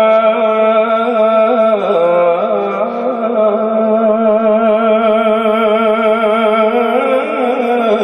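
A man singing a naat unaccompanied into a microphone, drawing out one long melismatic note with a wavering vibrato; the pitch drops and shifts about two seconds in, then holds again.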